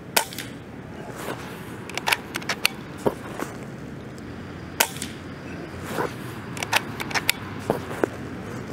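A .25-calibre RTI Priest 2 PCP air rifle firing Predator Polymag pellets: two sharp shots about four and a half seconds apart, one just after the start and one near the middle, with lighter clicks in between.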